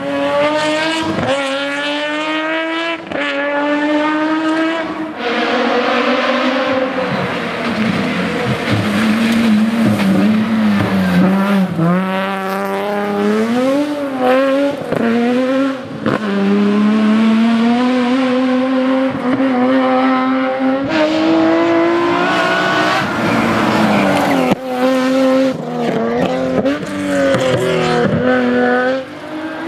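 Nissan 370Z's 3.7-litre V6 engine driven hard, its pitch climbing under acceleration and falling back sharply again and again at gear changes and lifts off the throttle.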